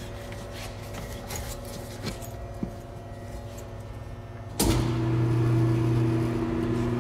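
Tire changer's electric turntable motor switching on about two-thirds of the way in and running with a steady hum as the tire's bottom bead is worked off the rim. Before that, only a few faint handling clicks.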